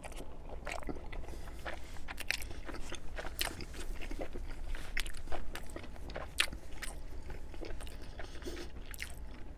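A person chewing a mouthful of Domino's Brooklyn-style pizza close to the microphone, with irregular crunching clicks throughout.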